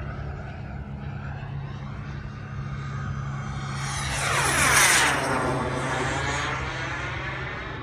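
Xicoy model jet turbine in a CARF Rebel making a fast pass: its whine and rushing sound build, are loudest about five seconds in, and drop in pitch as the jet goes by and fades.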